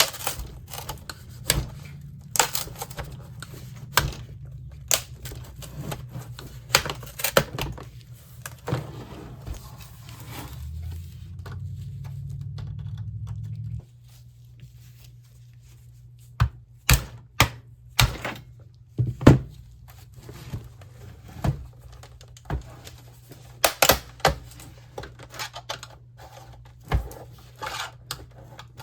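Plastic snap clips of an LCD monitor's front bezel clicking and cracking as the frame is pried loose with a small flathead screwdriver, giving irregular sharp clicks and knocks.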